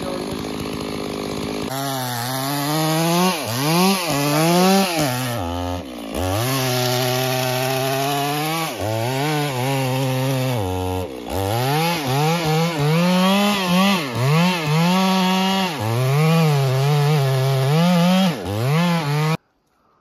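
Petrol chainsaw held at full throttle while cutting into a thick tree trunk, its engine pitch sagging and recovering as the chain loads in the wood, twice dropping sharply almost to a stall. It cuts off suddenly near the end.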